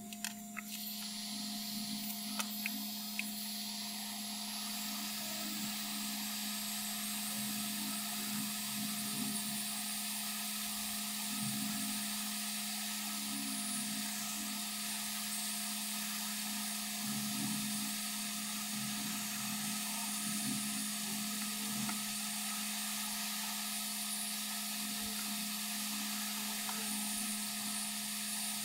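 Yihua 858D hot-air rework gun blowing steadily, with a click as it starts about half a second in, heating the solder joints of a laptop USB socket to desolder it. A steady low hum runs underneath.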